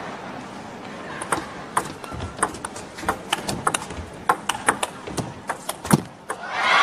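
Table tennis rally: the plastic ball clicking sharply off the rackets and the table in quick, uneven succession for about five seconds. Near the end the crowd begins to cheer.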